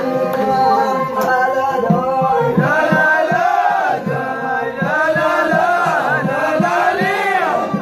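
A group of men singing an Amazigh (Tashelhit) song together in a chant-like chorus, over a hand frame drum beating steadily a few strokes a second, with string instruments playing along.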